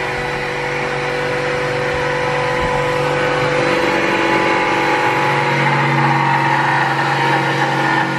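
Handheld electric power tool running steadily on a kitchen base unit, its motor pitch shifting slightly about halfway through.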